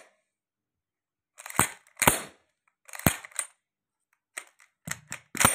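Volcanic semi-automatic shotgun being cocked by hand: the bolt is pulled back and snaps forward, feeding a cartridge from the magazine into the chamber. Two loud metal clacks about half a second apart, another pair about a second later, then lighter clicks near the end as a shell is handled at the loading port.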